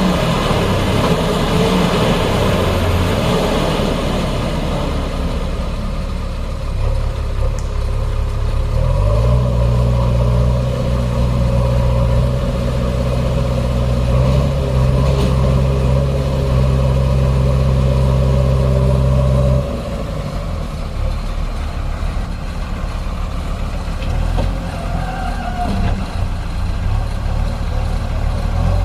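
Heavy diesel engine running, revved up about nine seconds in and held at high, steady revs for about ten seconds, then dropping suddenly back to a lower idle.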